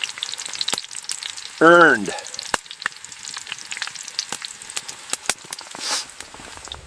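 Food frying on a small steel stove: a steady sizzling hiss dotted with many sharp crackles.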